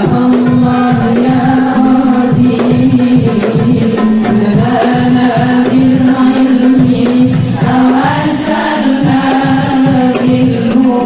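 A voice singing a melodic chant over a quick, steady hand-drum beat, in the style of Islamic devotional sholawat music.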